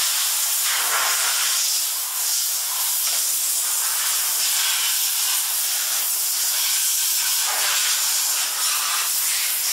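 Steady loud hiss, strongest in the high range, holding at a constant level with only slight brief dips.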